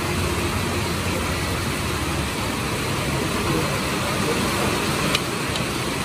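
Steady rumbling background noise with hiss, with two faint clicks about five seconds in.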